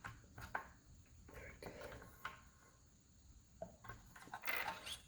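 Faint handling noises of small tools and metal parts: scattered light clicks and taps, with a short scrape near the end, as the linear-module slider screws are worked on.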